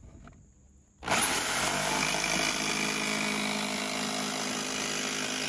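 Corded DeWalt jigsaw with a fresh metal-cutting blade starting about a second in and cutting through the sheet-metal van roof, running steadily.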